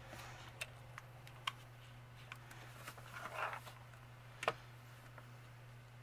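Scattered light clicks and taps from a hot glue gun and paper craft pieces being handled on a cutting mat, with a brief rustle about three seconds in and a sharper click about four and a half seconds in.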